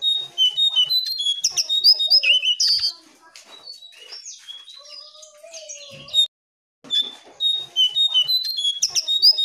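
Jongkangan (brown cing-coang) singing a rapid, jumbled run of high whistled and chirping notes, then a quieter stretch. After a brief gap about six seconds in, the same burst of song starts again. This is the bird's full song, used as a lure to set captive jongkangan singing.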